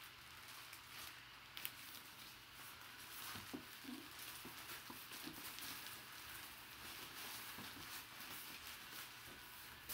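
Faint rustling and crinkling of a plastic bag and brown packing paper as a wrapped jersey is handled and lifted out of a cardboard box, with a few sharper crackles.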